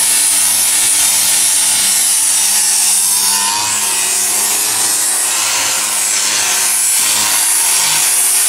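Handheld angle grinder running with an abrasive disc pressed against wood, grinding down its surface: a steady motor whine under a continuous scraping hiss.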